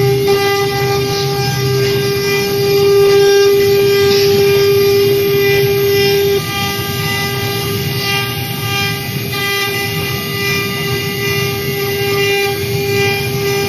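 Four-spindle 1325 CNC router cutting wood with all four spindles at once: a steady, high spindle whine over a rough cutting noise. The whine drops slightly in level about six seconds in.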